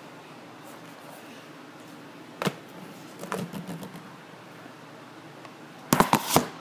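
Knocks and rustling from handling: one sharp knock, a stretch of rustling, then a quick run of about four loud knocks near the end.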